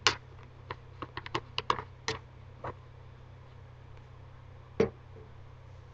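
A quick, uneven run of sharp clicks and taps close to the microphone: one loud click at the start, about ten in the next two seconds, then a single loud click near the end.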